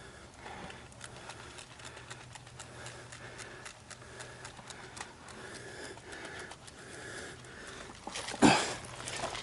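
Faint scattered clicks and rustling of a player moving with gear, with one loud bump about eight and a half seconds in.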